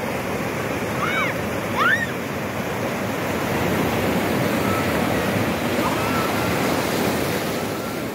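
Ocean surf breaking and washing steadily in the shallows, with a couple of short, high shouts from children in the water about one and two seconds in.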